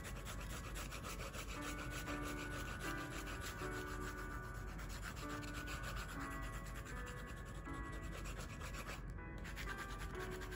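Blue coloured pencil shading lightly back and forth on sketchbook paper: a steady rubbing made of many quick, short strokes.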